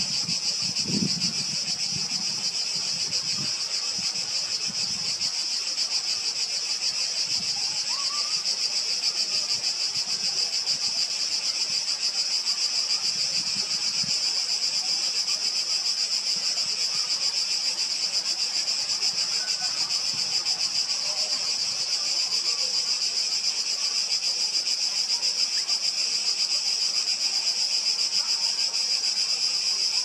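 A dense chorus of insects shrilling steadily and high-pitched, without a break.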